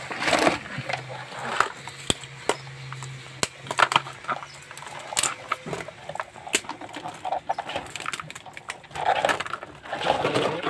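Land crabs being handled in a plastic basin: irregular sharp clicks, knocks and scrapes of shell and claws against each other and the tub.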